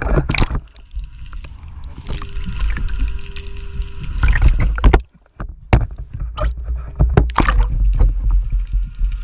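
Heavy, uneven rumbling and knocking on a GoPro microphone aboard a small fishing boat, with sharp knocks throughout and a brief cutout to near silence about five seconds in.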